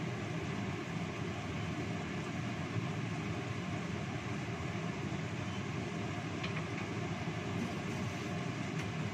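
A pan of fish in spiced sauce simmering on a gas stove: a steady rumbling hiss from the burner and the bubbling sauce.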